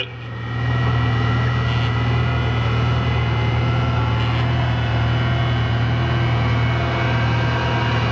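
J-79 military turbojet in a jet-powered ambulance running at idle: a steady whine over a low drone, with a high tone edging slightly upward.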